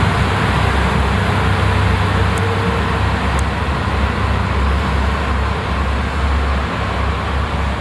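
Steady low engine rumble of a vehicle running, over a constant haze of background noise, with two faint ticks about a second apart.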